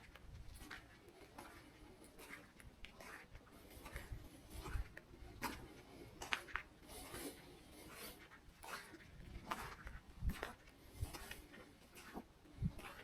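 Footsteps on a pine forest path, each step a soft scuffing crunch with a dull thud under it, at a slow walking pace of a step a little under every second.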